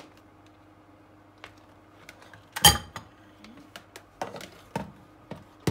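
Kitchen utensils knocking against a mixing bowl. There is one loud clank about halfway through and a few lighter knocks near the end.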